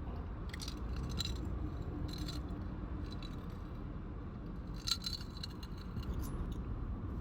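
Tableware clinking: a few short, light clicks and clinks of small hard objects, the loudest about five seconds in, over a steady low hum.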